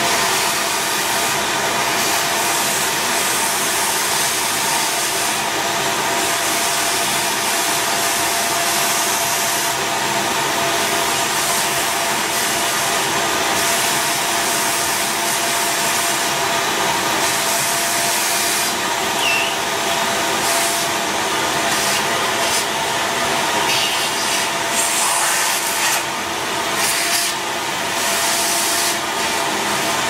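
Shop vacuum running steadily with a constant motor hum, its hose sucking fine wood dust off a router's power switch. The rushing of the intake rises and dips several times in the second half as the nozzle is moved.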